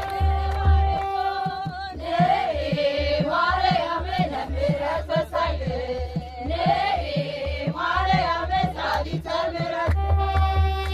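Ethiopian Orthodox Tewahedo New Year hymn (mezmur): singing in a wavering, bending melody over steady low drumbeats, with a held steady tone in the first two seconds and again near the end.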